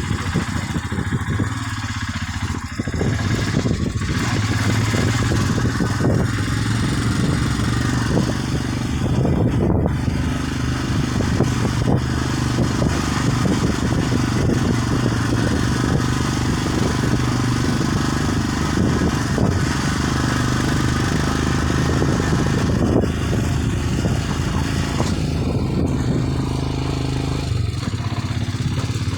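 A vehicle's engine running steadily while driving over a rough off-road track, with frequent knocks and rattles from the bumps; the engine pitch shifts a few times.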